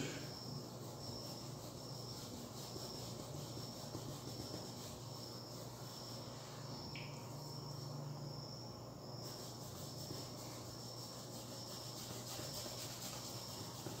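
Faint insect chirping, short high chirps repeating at an even pace, over a low steady hum.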